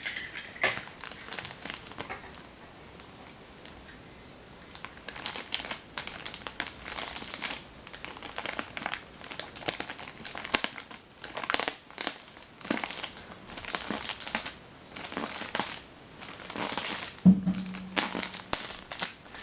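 Tape and packaging crinkling and rustling as a taped mail package is pulled and cut open, in irregular bursts that start about five seconds in after a quieter stretch. A brief low hum sounds near the end.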